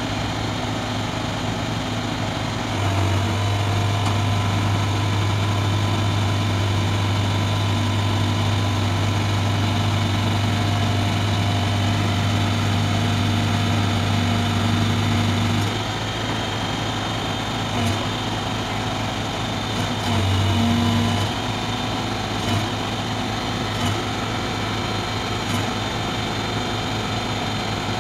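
Diesel engine of a Demag AC 615 mobile crane running steadily at idle. A deeper, louder hum comes in about three seconds in and holds for some twelve seconds, then returns briefly around twenty seconds.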